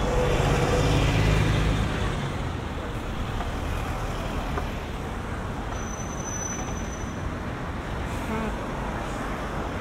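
Busy city road traffic going by: a heavy vehicle's engine is loudest in the first two seconds, then a steady wash of passing cars and engines. A short high squeal sounds about six seconds in.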